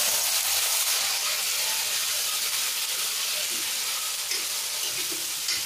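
Onion and garlic paste sizzling as it is dropped into hot oil in a kadhai: a steady frying hiss that eases slightly toward the end.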